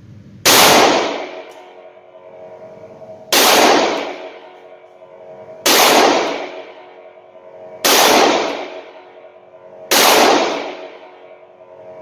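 Rock Island AL3.1 snub-nose revolver firing .357 Magnum rounds in single action: five loud shots a couple of seconds apart, with a sixth at the very end. Each shot rings and echoes off the walls of an indoor range.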